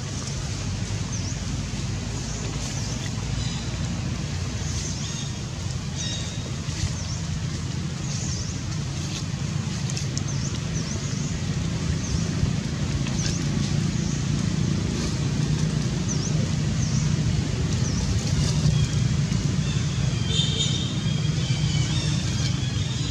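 A steady low engine rumble, like a vehicle running nearby, growing a little louder partway through. Short high chirps of small birds sound on and off, with a cluster of higher calls near the end.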